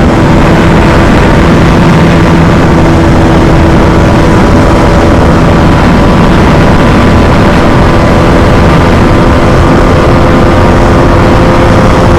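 Bajaj Dominar 250's single-cylinder engine held at steady high revs in fifth gear at near top speed, a constant drone with unchanging pitch under a loud rushing noise of wind on the microphone.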